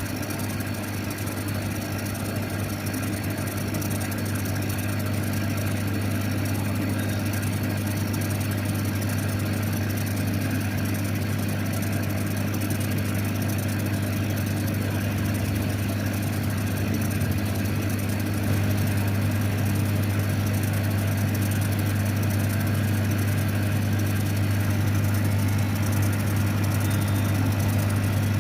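Steady low electric hum and motor drone of a CO2 laser cutting machine and its fans running, growing a little louder about two-thirds of the way through.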